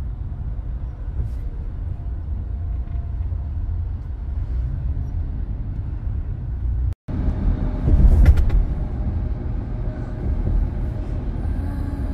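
A moving car's road noise: a steady low rumble of tyres and engine. About seven seconds in the sound drops out for a moment, then comes back louder, swelling briefly a second later.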